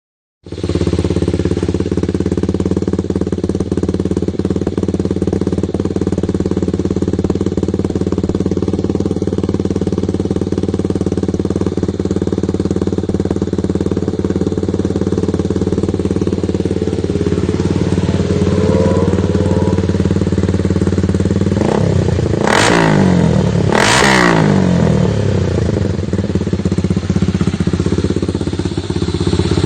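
RS150 motorcycle idling steadily through an open conical aftermarket muffler with a 4-cut tip, then two quick throttle blips about 22 and 24 seconds in, each rising and falling back to idle.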